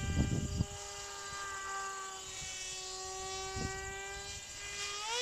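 Brushed, Speed 400-class electric motor and propeller of a radio-controlled Hobbyzone Aerobird in flight, giving a steady high-pitched drone. Near the end the drone climbs sharply in pitch and gets louder.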